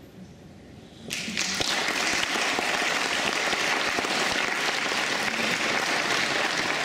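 Audience applauding: the clapping breaks out suddenly about a second in and carries on steadily, a dense crackle of many hands.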